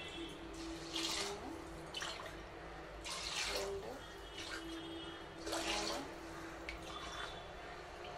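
Water poured from a steel tumbler into an aluminium pressure cooker holding rice: about six splashy pours roughly a second apart, with a few short rising tones between them.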